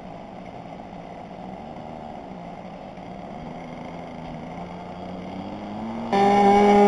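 RC model airplane's small propeller engine running as the plane taxis, its pitch wavering up and down with the throttle. About six seconds in, a much louder, steady engine note starts abruptly.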